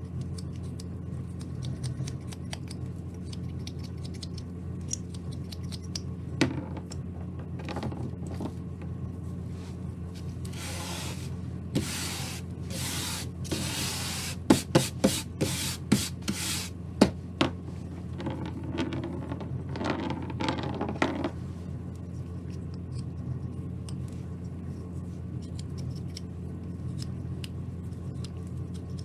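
A carving knife slicing small cuts in basswood, making faint clicks and crisp shaves. In the middle comes a run of louder scraping strokes over about six seconds, with a few more shortly after, as the wood chips are swept together across the plastic cutting mat. A steady low hum lies underneath.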